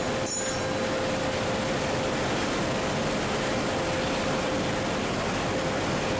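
Old cardboard-making machine running steadily: an even rushing noise with a constant mid-pitched hum, and a brief high squeak just after the start.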